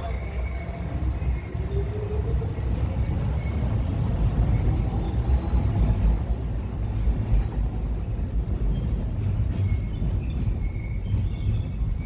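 Docklands Light Railway train running on the elevated track close by: a heavy rumble builds and peaks midway, while the traction motor's whine rises steadily in pitch over the first several seconds as the train gathers speed.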